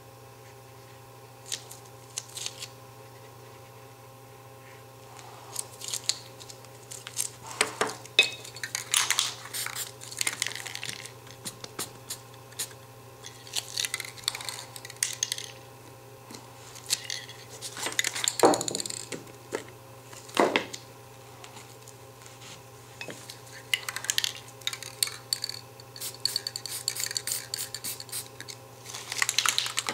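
Aerosol spray-paint cans hissing in short bursts, mixed with the clink and clatter of metal lids and bowls being set down and lifted on the painting. Two sharper knocks come a couple of seconds apart in the middle.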